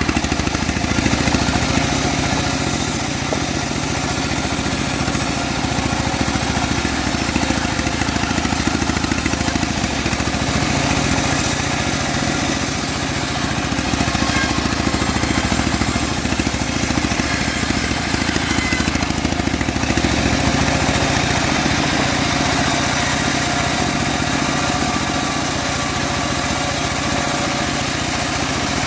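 Homemade bandsaw sawmill running steadily with an engine-like drone throughout, as used for ripping teak logs.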